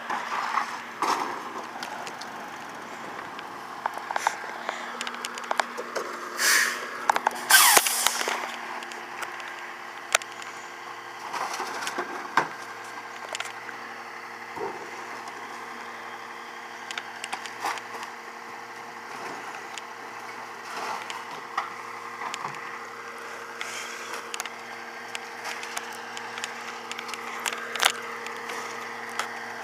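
McNeilus rear-loader garbage truck on a Freightliner chassis idling steadily, with scattered knocks and clatter of trash cans and refuse being handled. Two short, loud hissing bursts come about six and a half and eight seconds in.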